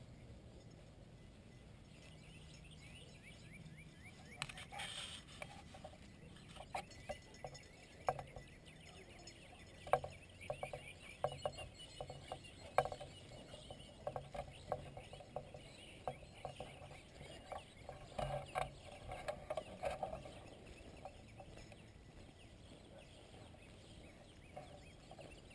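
Faint outdoor sounds: irregular footsteps through dry grass, with short bursts of distant hound baying through the middle, thickest about ten seconds in and again near two-thirds of the way through.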